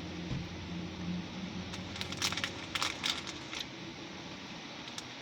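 Biting and crunching a hard-shelled Nerds candy corn piece: a cluster of sharp cracks and crunches about two seconds in, lasting a second and a half, over a steady low hum.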